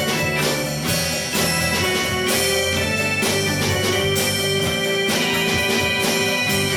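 A rock band playing live: electric guitar and sustained keyboard-like tones over drums with a steady beat.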